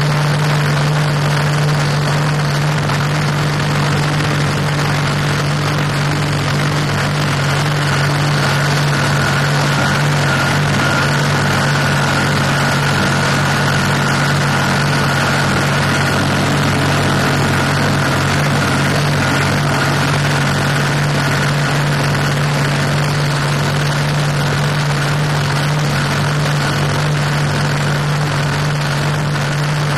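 Blown, alcohol-injected drag boat engine running at a steady speed, heard from the driver's seat over a constant rushing hiss. A thin high whine comes in about eight seconds in and fades out some twelve seconds later.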